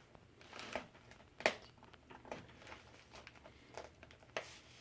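Faint paper handling: a greeting card or envelope rustling and crinkling as it is opened, with a couple of sharp taps or clicks.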